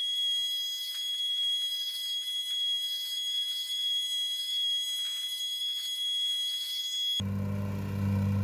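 A steady, high-pitched whine of several pure tones, with no low end. About seven seconds in it cuts to a plate compactor's small gasoline engine running with a low, steady drone.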